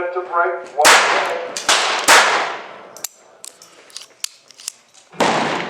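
Four gunshots from a .22 LR J-22 pistol, each a sharp crack with a fading echo. The first comes about a second in, a weaker one follows shortly after, the third comes about two seconds in, and the last near the end. Faint clicks of the pistol being handled fall between the last two shots.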